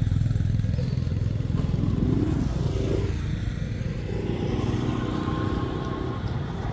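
An engine running steadily with a low hum, a fainter higher whine joining about halfway through.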